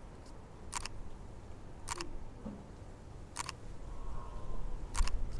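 Camera shutter clicking four times, roughly a second and a half apart.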